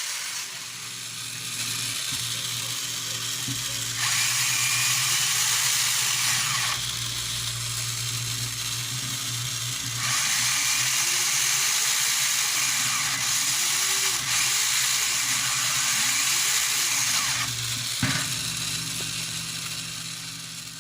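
Small electric motor and gear drive of a mini RC model farm truck running, with a whirring gear grind that grows louder twice, for a few seconds each time, and a pitch that rises and falls as the speed changes.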